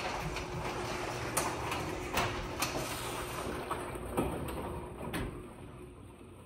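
Overhead sectional garage door opening on its motorised opener: a steady running hum with several sharp clacks as the door travels up. It stops about five seconds in.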